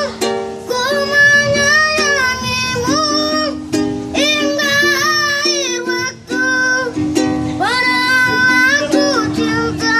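A child singing a slow, plaintive song with long wavering held notes, accompanied by a strummed small plucked string instrument.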